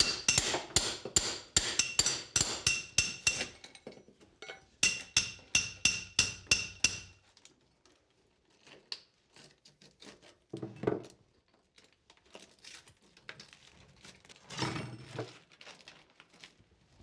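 Hammer driving a steel masonry chisel in quick blows, about five a second, chipping out the old mortar bed under a flagstone, each strike ringing off the steel. Two runs of blows stop about seven seconds in. After that there are lighter scattered clicks and clatter as broken mortar pieces are handled.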